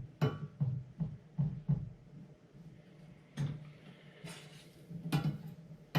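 A metal utensil knocking and scraping in a frying pan as sausage is stirred to brown, a few sharp knocks over a low, uneven pulsing hum.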